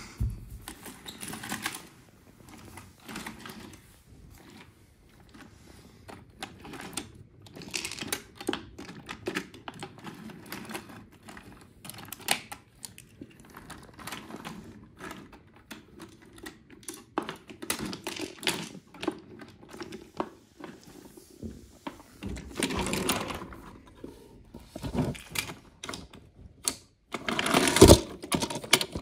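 Wooden toy trains being pushed and rolled along wooden track: a rattling clatter of many small clicks and knocks over a low rolling rumble, loudest near the end.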